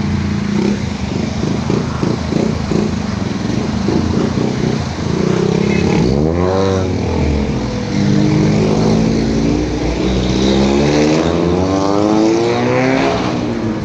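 Street traffic with motor vehicle engines running close by. About six seconds in, one engine passes with a quick sweep in pitch. From about eight seconds, an engine revs up with rising pitch for several seconds.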